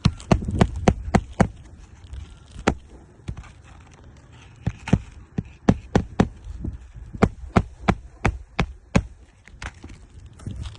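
Hammer driving roofing nails into a replacement shingle: runs of sharp blows, about two to three a second, with short pauses between nails.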